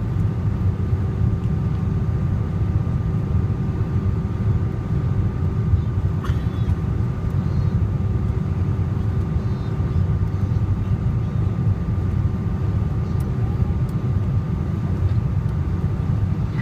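Steady low roar of a Boeing airliner's cabin in flight, the drone of engines and rushing air, with a faint steady hum of higher tones over it.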